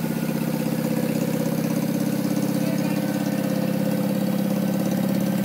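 John Deere garden tractor engine running at a steady speed as the tractor drives along, with a fast, even pulse.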